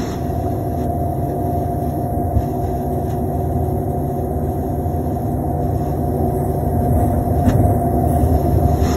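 Cummins ISL diesel engine of a 2005 New Flyer D35LF transit bus running steadily, heard from inside the passenger cabin, growing gradually louder toward the end.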